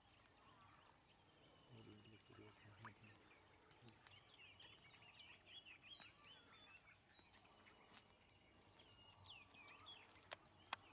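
Faint bird calls over quiet background: a run of short chirps in the middle and a few more near the end, with a few soft clicks.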